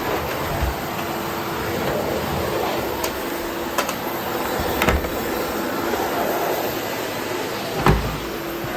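Philips Triathlon vacuum cleaner running steadily while picking up a mess, with a faint steady hum and a few sharp clicks, the loudest near the end.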